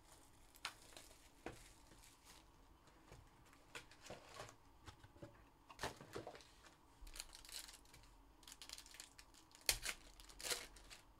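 Foil trading-card packs crinkling and tearing as a hobby box is unpacked and a pack is opened: faint scattered crackles, with two sharper ones near the end.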